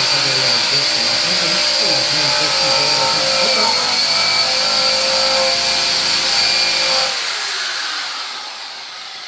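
Handheld rotary surface-prep tool with a stripping wheel, running steadily against metal to strip paint, with a constant high whine. It is switched off about seven seconds in and spins down.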